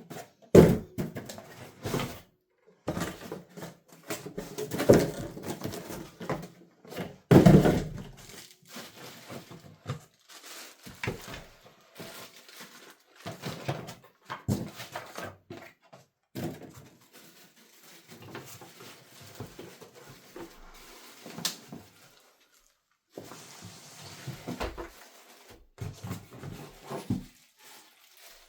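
Unboxing handling noise: irregular knocks, thuds and rustling as cardboard packaging and the wood lathe's parts are moved and set down, with a few louder thumps in the first eight seconds.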